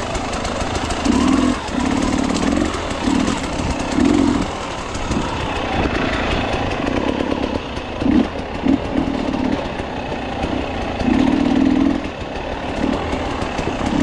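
Enduro dirt bike's engine on a rocky downhill, rising and falling in short throttle blips about every second over a steady rush of noise.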